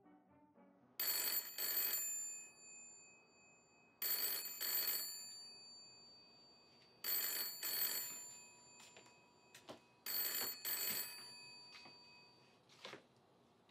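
Old candlestick telephone's bell ringing in double rings, four times about three seconds apart, each ring fading out. A short knock comes near the end.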